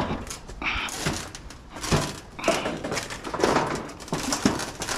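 A loaded engine hoist being pushed across corrugated sheet-metal roofing: irregular metallic scraping and clanking as its wheels and the hanging load grind over the metal.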